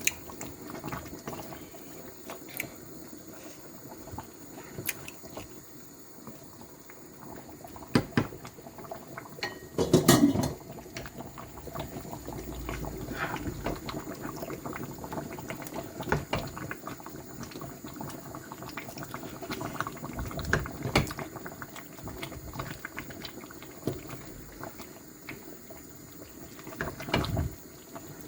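Pot of Edo bitter leaf black soup bubbling and simmering, with scattered knocks and a louder clatter about ten seconds in.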